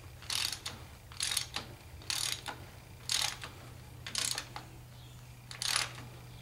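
Socket wrench ratchet clicking in six short strokes about a second apart, with a longer pause before the last, as a 15/16 deep-well socket turns a coolant temperature sending unit into the engine block. A steady low hum runs underneath.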